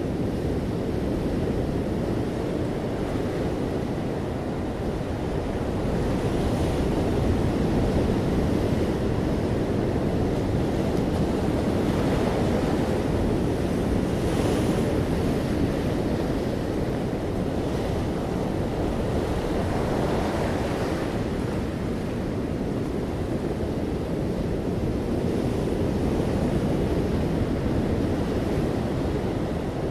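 Ocean waves breaking and washing on a beach in a steady surf, with swells of hiss as waves break, and low rumble from wind on the microphone.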